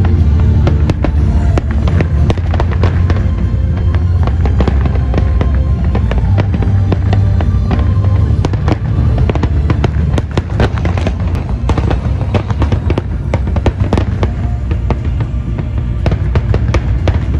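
Aerial fireworks display: many shells bursting with rapid sharp cracks and crackling, thickest about halfway through, over a steady low rumble, with music playing throughout.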